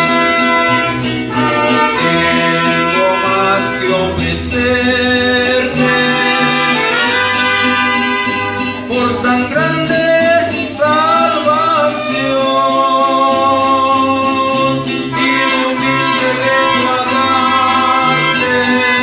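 A mariachi-style ensemble plays an instrumental interlude. Trumpets and violin carry the melody over the plucked bass notes of a guitarrón and a strummed vihuela.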